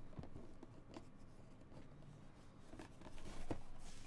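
Hands handling a rigid white cardboard box and lifting its hinged lid: faint rubbing and light taps of card stock, a little louder about three and a half seconds in.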